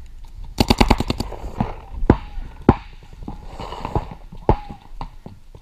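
Paintball markers firing: a quick string of about eight shots about half a second in, then single shots scattered through the rest.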